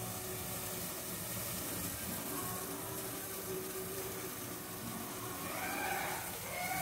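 Steady faint hiss of a gas stove burner under an aluminium uruli, the wash water left in the pan heating off.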